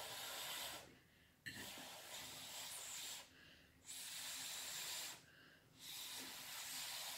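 A person breathing close to the microphone: soft hissing breaths, each about a second long, with short pauses between.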